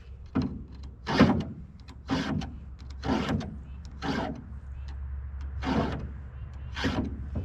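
A file rasping across a chainsaw chain's cutters while it is sharpened by hand: short push strokes about once a second, seven in all, with a brief pause about two-thirds of the way through.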